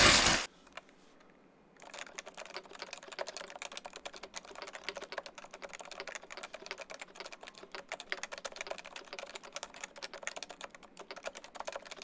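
Fast touch-typing on a Leopold FC980C with its stock Topre switches: a dense, even run of rapid, muted keystrokes from the rubber-dome switches, starting about two seconds in.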